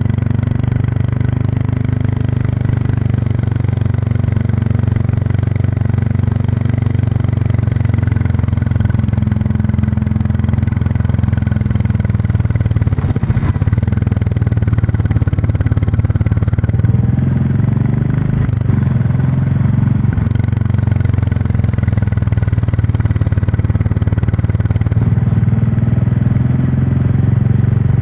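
Royal Enfield Classic 350's single-cylinder engine and exhaust running steadily at cruising speed. The engine note wavers briefly a little past the middle as the throttle changes.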